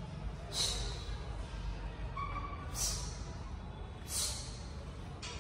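A man breathing out sharply with each rep of a straight-arm cable pulldown: three short, hissing breaths about 1.5 to 2 s apart, over a steady low hum.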